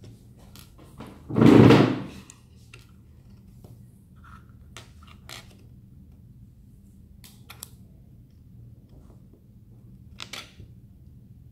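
A loud thump about a second and a half in, then a few faint clicks of small Lego pieces being handled and pressed together as a minifigure is assembled.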